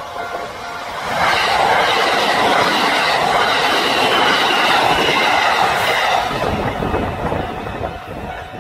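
Train running on the rails: a steady rumble of wheels on track that grows louder about a second in, with a faint high-pitched wheel squeal over it, easing off near the end.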